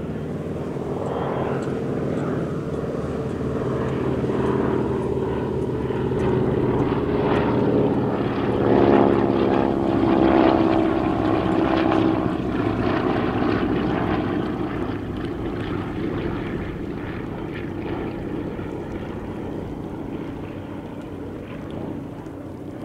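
Pratt & Whitney radial piston engines of vintage propeller warbirds flying past: the engine sound builds, peaks about nine to ten seconds in with the pitch shifting as the aircraft pass, then fades away.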